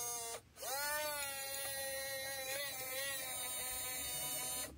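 Remote-control toy excavator's small electric motor whining as the upper body and boom swing round. It cuts out briefly about half a second in, spins up again to a steady whine, and stops near the end.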